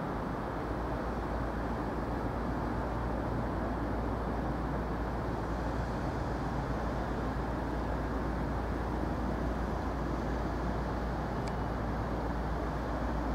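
Class 56 diesel locomotive's Ruston-Paxman 16-cylinder engine running, a steady low drone.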